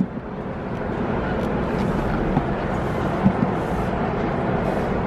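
Steady background din of a crowded exhibition hall, with a sharp thump right at the start and a couple of light knocks later on.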